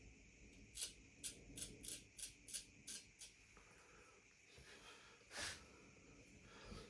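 Harlex straight razor scraping across facial stubble in about eight quick short strokes, roughly three a second, then one longer stroke about five and a half seconds in.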